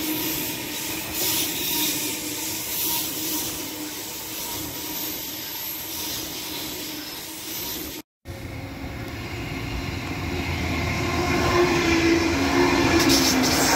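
Queensland Rail NGR electric train running past along the platform, a steady hum with a faint whine. After a sudden cut about eight seconds in, an older stainless-steel electric multiple unit rolls past, growing louder, with wheel clicks near the end.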